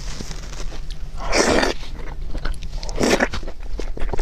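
Close-miked slurping and chewing of wide flat noodles in a spicy broth: two long slurps, about a second and a half in and again about three seconds in, with wet mouth clicks and chewing between.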